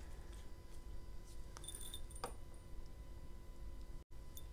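Metal dog tag and chain necklace jingling, a few light clinks with a brief metallic ring, mostly around two seconds in.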